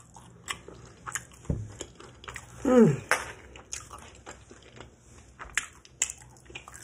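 Close-up chewing of a fried egg roll stuffed with fufu and egusi soup: wet mouth smacks and light crunches of the wrapper. There is a short low thump about one and a half seconds in, and just under three seconds in comes a falling "mmm" hum of enjoyment.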